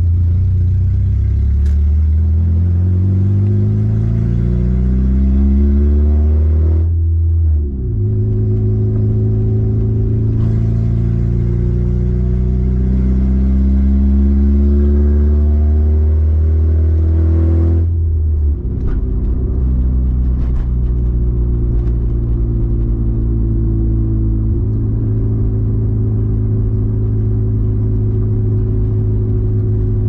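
Honda Civic hatchback with Skunk2 Alpha Series headers accelerating through the gears, heard from inside the cabin: the engine note climbs steadily, drops at an upshift about seven seconds in, climbs again, drops at a second upshift around eighteen seconds, then settles into a steady cruise.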